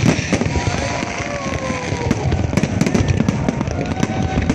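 Fireworks going off in quick succession: dense sharp crackles and pops over continuous low thuds.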